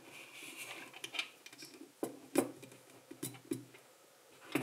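LEGO plastic pieces being handled and pressed together during building: light rustling at first, then a scattering of sharp, irregular clicks.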